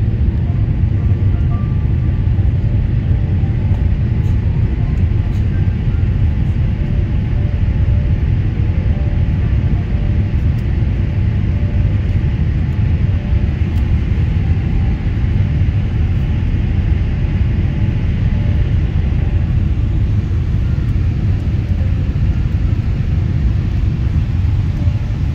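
Jet airliner cabin noise during the climb just after takeoff: the engines and rushing air make a loud, steady low rumble.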